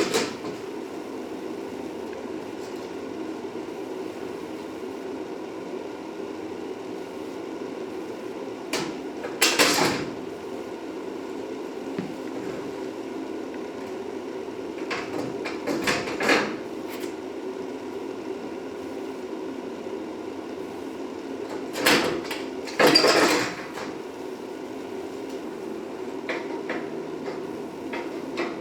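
Several separate metallic clanks and clatters from a new truck bumper and its bolts being handled and fitted onto the truck, over a steady low hum. The loudest knocks come about a third of the way in and again around three quarters of the way in.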